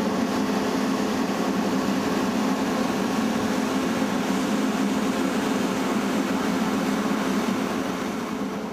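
ETR 500 high-speed train's electric power car running its auxiliary equipment: a steady low hum over a fan-like rush, easing off slightly near the end.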